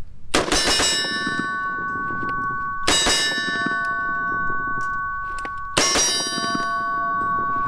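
Three shots about three seconds apart, each followed by a steel target ringing with a steady metallic tone that hangs on until the next hit.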